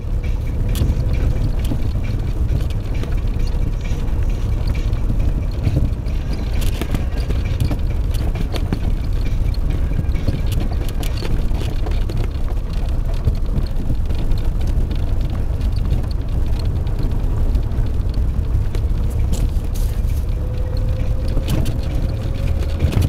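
In-cabin road and engine rumble of a car driving slowly over a badly potholed road, with scattered knocks and rattles as it jolts over the holes. A faint engine whine rises near the end.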